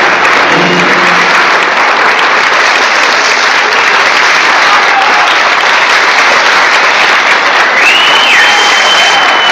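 Theatre audience applauding, loud and dense, as the last notes of the dance music die away in the first second. Near the end a long high whistle rises and holds above the clapping.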